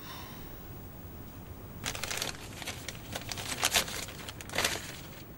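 Paper letter rustling and crinkling as its sheets are unfolded and handled, in irregular crackles starting about two seconds in.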